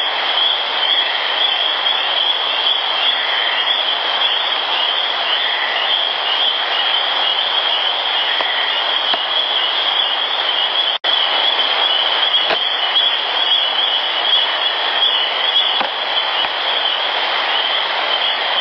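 Heavily amplified woodland field-recorder audio: a steady hiss with a constant high-pitched whine, cut off for an instant about eleven seconds in. A few faint taps come in the second half.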